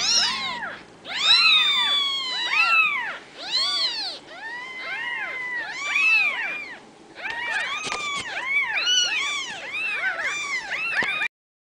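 Several newborn Ragdoll kittens mewing, thin high cries that rise and fall in pitch and overlap one after another. The sound stops abruptly near the end.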